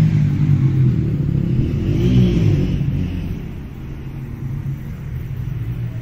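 A motor engine running, its pitch rising and falling about two seconds in, then fading away.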